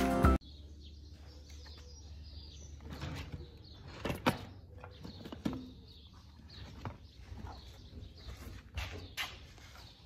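Intro music cuts off within the first half-second. Then comes rustling and scattered knocks and clicks as the phone camera is handled and propped in place, with faint bird chirps in the background.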